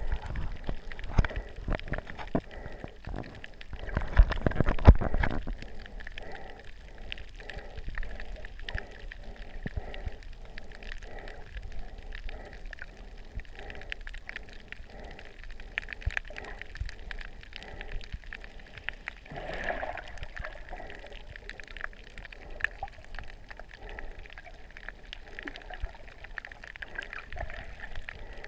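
Water heard through a camera held under water: loud splashing and bubbling for the first five seconds, then muffled water noise with many small clicks and a soft regular pulsing about every three-quarters of a second. A short bubbly whoosh comes about two-thirds of the way through.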